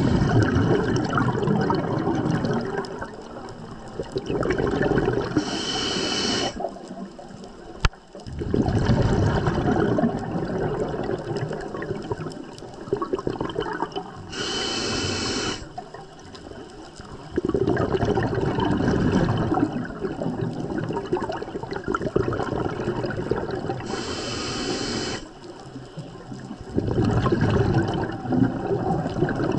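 Scuba diver breathing underwater through a regulator: long bursts of exhaled bubbles alternating with a short hiss on each inhale, three breaths about nine seconds apart.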